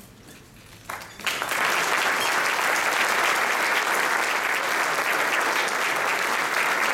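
Audience applauding, breaking out about a second in after a brief hush and then going on steadily.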